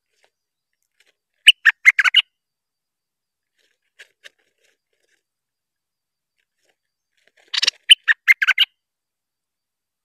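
Stripe-throated bulbul singing: two short bursts of quick, loud song notes, each under a second long and about six seconds apart, with a couple of faint notes between them.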